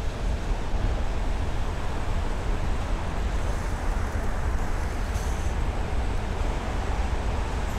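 Steady low rumble and hiss of a long station escalator running, heard while riding it up, with a faint high tone throughout and a couple of faint light ticks about five seconds in.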